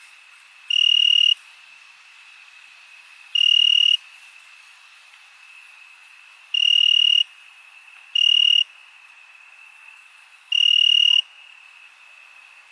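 Crickets chirping at night: a steady high chorus in the background, with one nearer cricket giving five loud half-second trills at uneven intervals.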